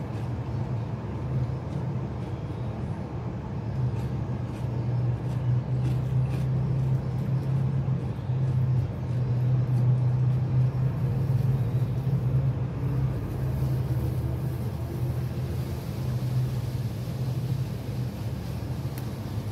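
A steady low hum throughout, with faint small clicks and crackles in the first half as crispy fried chicken is torn apart and eaten by hand.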